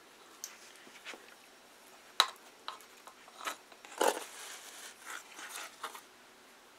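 A paintbrush tapping and scraping in a plastic bowl of glue. Scattered light taps lead to a sharp click about two seconds in, then a louder knock about four seconds in, followed by a couple of seconds of rubbing.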